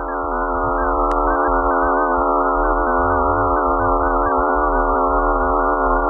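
Eerie electronic space drone: many steady, slightly wavering tones stacked together over a low rumble, offered as the 'sound' of Phobos, Mars' moon. A single short click about a second in.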